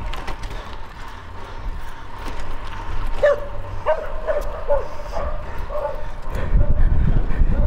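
A dog barking, a string of short barks about two a second from around three seconds in, followed by low wind rumble on the microphone that grows louder near the end.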